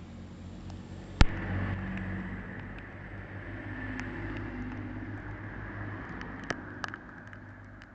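Diesel engines of a pair of Class 185 multiple units (Cummins QSK19, one per car) running as the train moves off: a low steady engine hum that swells after a sharp knock about a second in, then slowly fades. Scattered sharp ticks sound over it.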